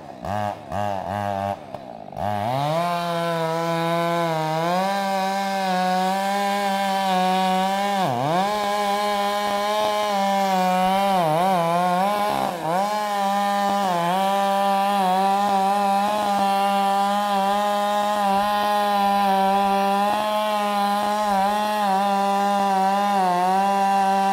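Stihl MS462 two-stroke chainsaw with a Bark Breaker exhaust, blipped a few times in quick succession, then held at full throttle cutting into a large tree trunk. Its pitch sags briefly a few times as the chain bites under load.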